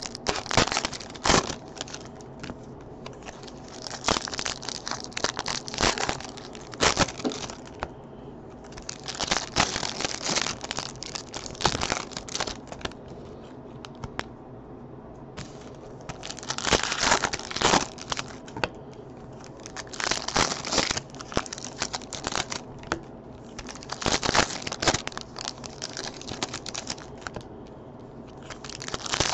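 Foil trading-card pack wrappers being torn open and crumpled. The crinkling comes in bursts every few seconds, with quieter spells between.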